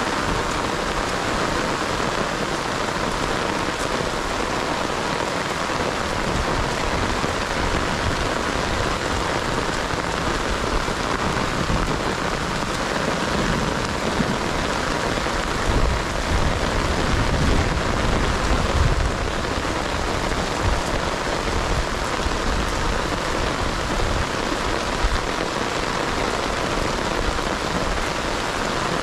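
Heavy rain falling steadily on a rice paddy and marshy standing water, a dense even hiss of drops. A low rumble swells for a few seconds around the middle.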